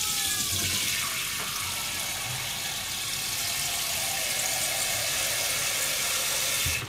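Kitchen tap running into a hammered aluminium saucepan, filling it with water, a steady stream that stops suddenly near the end.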